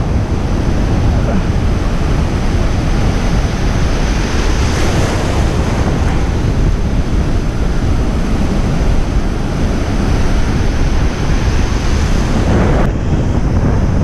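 Ocean surf foaming and washing over a shallow rocky reef, with heavy wind buffeting on the microphone.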